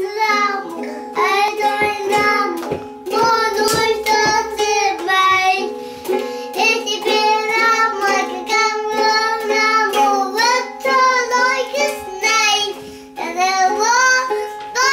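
Young child singing a children's song, with steady held notes of an accompaniment underneath.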